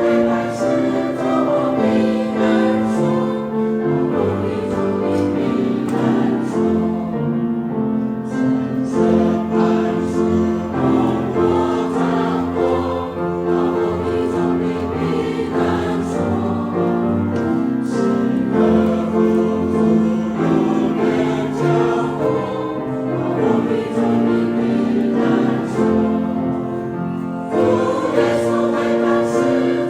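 Senior church choir singing a hymn in sustained, multi-voice lines.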